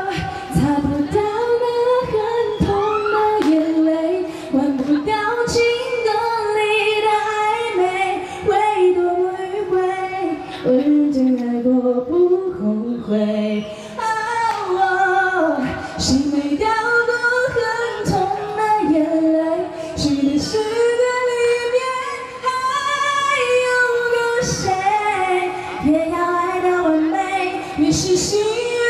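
A woman singing the chorus of a song a cappella, one voice with long held notes and no instruments.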